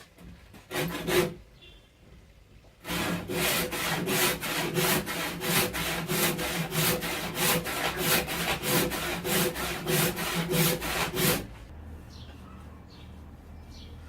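Hand saw cutting through a hardwood beefwood log in quick, even back-and-forth strokes, about two to three a second. The sawing stops about 11 seconds in.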